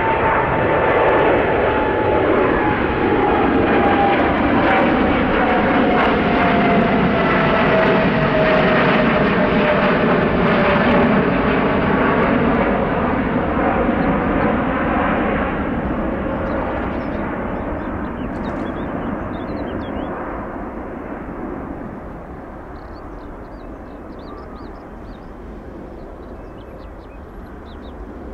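Jet engines of a departing Boeing 787 climbing out and passing the listener, with tones in the engine noise sliding steadily down in pitch. The noise stays loud for about the first fifteen seconds, then fades as the aircraft climbs away.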